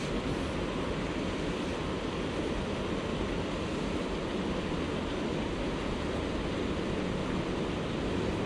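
Steady wind buffeting the camera microphone: an even rushing noise with an uneven low rumble.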